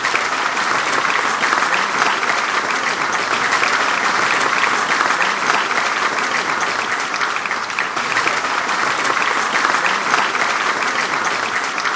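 An audience applauding, a dense and steady clapping that keeps up without a break.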